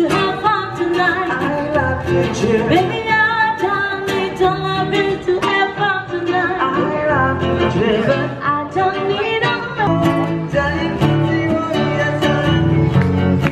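A song with a singer over plucked or strummed guitar accompaniment.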